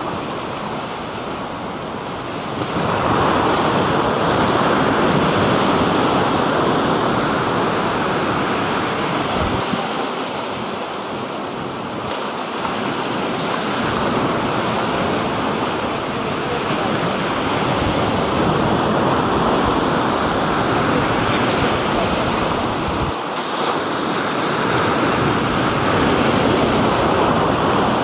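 Black Sea surf: waves breaking and washing on the shore in a continuous rushing noise that swells about three seconds in and again near the end.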